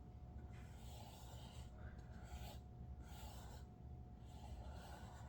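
Paintbrush stroking paint onto a foam glider: several soft swishing strokes, one after another.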